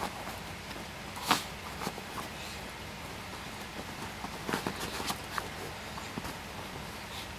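A dachshund digging and pawing at a blanket on a bed: soft scratching and rustling of fabric, with a few sharp clicks, the loudest about a second in.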